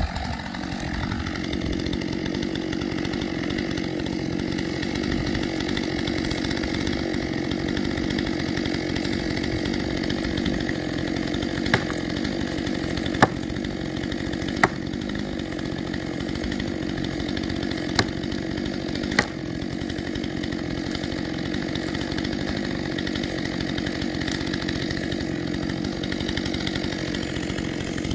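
Stihl two-stroke chainsaw idling steadily at an even pitch. About halfway through, five short sharp knocks or cracks sound over it.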